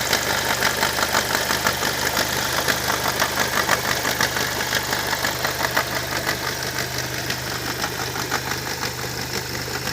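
Opel Vectra C's Z20NET 2.0-litre turbo four-cylinder petrol engine idling, with a fast, steady ticking rattle over the low engine hum, the strange engine noise in question. The ticking gets slightly fainter about two-thirds of the way through.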